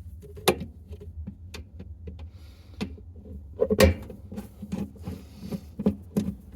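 Scattered sharp clicks and knocks of a long socket extension being worked down under the agitator of a stackable washing machine to free a jammed sheet, the loudest cluster about four seconds in and the knocks coming faster near the end, over a low steady hum.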